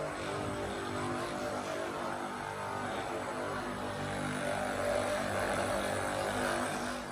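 A steady motor-like buzz made of a low hum with many even overtones, which cuts off abruptly near the end.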